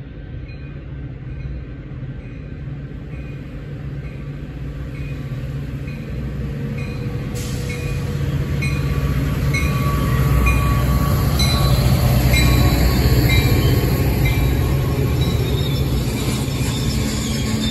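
Diesel-hauled commuter train passing: the low rumble of the locomotive builds as it approaches, is loudest as it goes by about two-thirds of the way through, then gives way to the rolling noise of the bilevel passenger cars. A bell rings in a steady rhythm the whole time.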